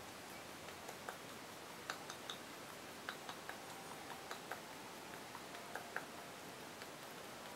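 Basset hound scratching its neck with a hind leg: faint, irregular clicks and ticks, a few a second, over a low hiss.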